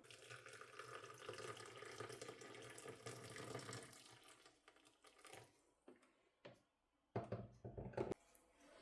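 Water running from a kitchen tap for about four seconds, then stopping. A few light clicks follow, and near the end a louder bump of handling noise lasts about a second.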